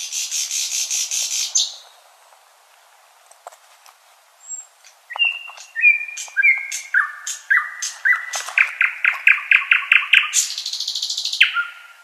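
Nightingale singing: a fast buzzing trill, then a pause with a few faint clicks, then a run of short whistled notes stepping down in pitch, leading into a rapid repeated-note trill and a high buzzing trill near the end.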